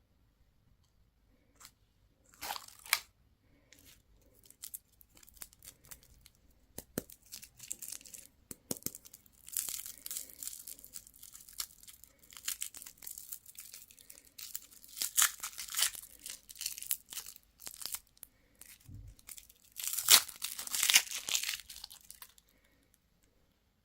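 Candy or surprise-egg wrappers being torn open and crinkled in irregular bursts, with a soft thump shortly before the last and loudest burst.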